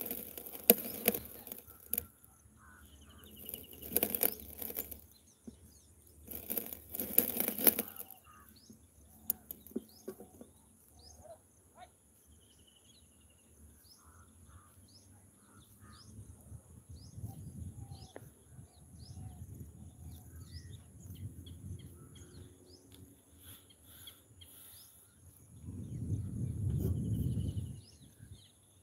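Outdoor ambience of birds calling with many short, falling chirps. It is broken by three loud bursts of rustling noise in the first eight seconds and a low rumbling noise a couple of seconds before the end.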